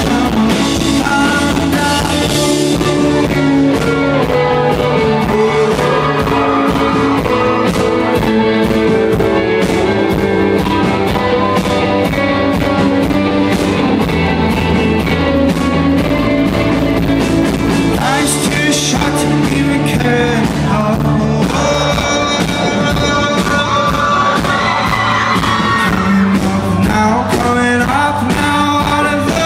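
Live rock band playing loudly, with guitars, bass and drums, and a singer's voice at times.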